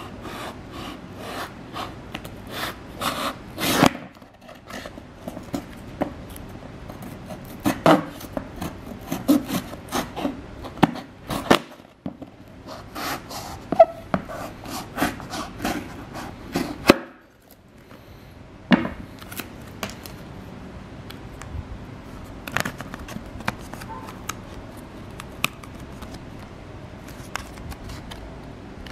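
Serrated knife sawing and scraping at a flash drive's plastic blister packaging, with irregular clicks and crackles of handled plastic. About two thirds of the way in the cutting gives way to a few scattered clicks.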